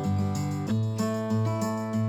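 Background music: an acoustic guitar strummed in a steady rhythm, changing chord about two-thirds of a second in.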